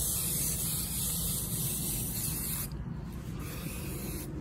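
Aerosol can of vanilla cover-scent spray hissing: one long spray, a break about two and a half seconds in, then a second shorter spray that stops near the end.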